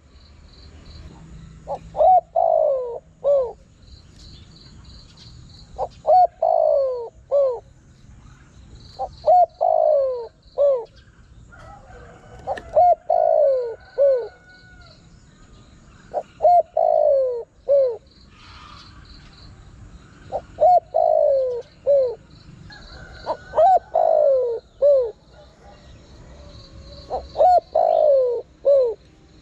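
Spotted dove cooing: a repeated phrase of three or four short, falling coos, about once every three and a half seconds. Faint high chirping trills run behind it.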